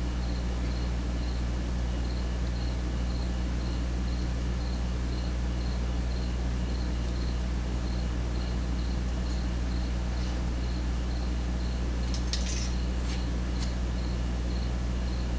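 A steady low electrical hum, with a faint high chirp repeating about twice a second over it. A few small metallic clicks come near the end as the padlock's loose pins and springs are handled.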